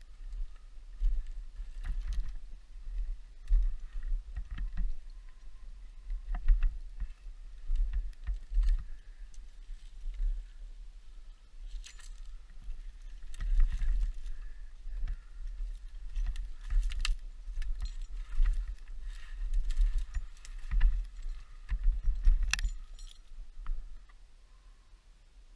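Metal gear clinking and jangling in irregular bursts, with scattered knocks and low thumps from handling and movement. It dies down near the end.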